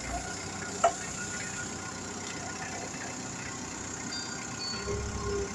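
TCM forklift running in operation: a steady mechanical hum with faint whining tones, one sharp click about a second in, and a short low rumble near the end.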